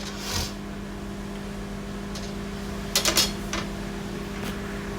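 Microwave oven running with a steady hum, with a few light clicks and scrapes of handling, the loudest cluster about three seconds in.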